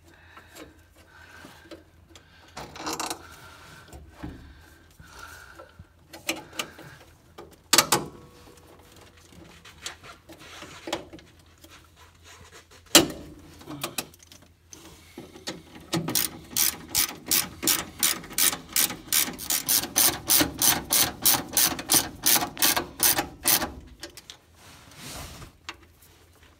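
Ratchet wrench worked in quick strokes, about four clicking strokes a second for several seconds, tightening a nut at the battery. Before it come scattered clicks and a couple of sharp knocks from handling the battery hardware.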